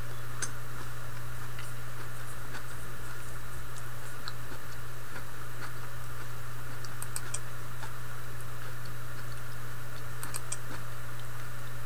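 A few faint computer mouse clicks, a couple grouped together near the end, over a steady low electrical hum.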